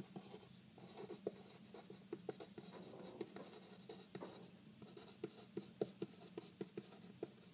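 Pen writing on paper: quick, irregular little taps and scratches of the tip as the words are written.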